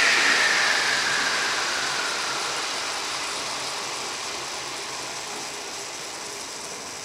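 Electric RC helicopter (Alzrc Devil 420 Fast) spinning down on the ground: the whine of its motor and drivetrain sinks steadily in pitch and fades as the rotor slows.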